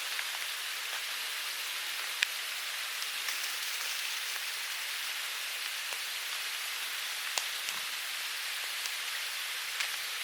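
Wood campfire crackling: a steady hiss with a few sharp pops, the loudest about two seconds in.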